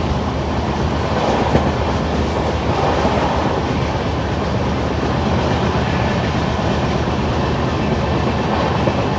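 Passenger express train running on the track, a steady rumble and rattle of the coaches' wheels on the rails.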